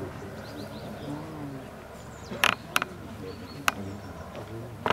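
A low murmur of distant voices, broken by four sharp clicks or knocks. The first two come close together about halfway through, one follows a second later, and the last comes near the end.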